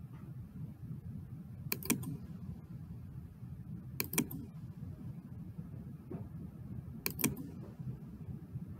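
Computer mouse clicks: three quick pairs of clicks a couple of seconds apart, over a steady low background hum.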